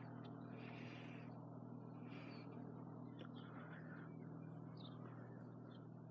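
Quiet outdoor background: a steady low hum with a few short, faint high chirps from small birds.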